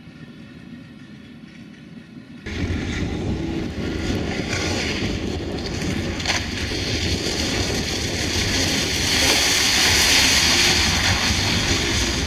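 Fiat Punto rally car driving on a wet stage, its engine running under a steady hiss of tyres through standing water. It is faint and distant at first, then suddenly much closer about two and a half seconds in, and louder still as it passes near the end.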